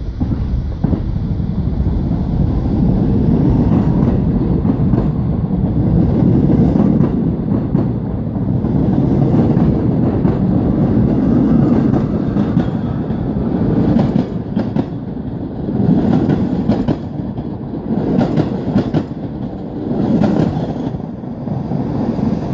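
R68A subway cars accelerating out of the station, their traction motors howling over the heavy rumble of the wheels, with wheel clicks over rail joints in the second half. The sound grows fainter near the end as the train pulls away.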